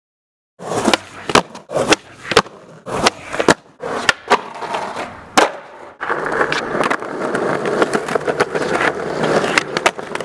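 Skateboard on asphalt: after a brief silence, about a dozen sharp clacks and slaps of the board hitting the ground, then from about six seconds in the steady rolling noise of its wheels over rough pavement.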